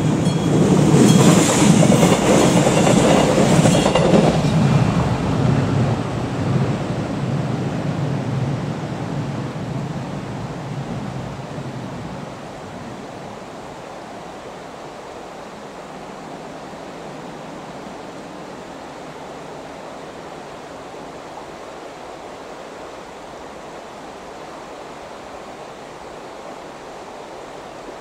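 Arriva class 845 railcar passing over the level crossing with clattering wheels, loud for the first few seconds and fading away by about twelve seconds in. The crossing's electric warning bell rings over it and stops about four seconds in, as the crossing clears. Then only a steady even hiss remains.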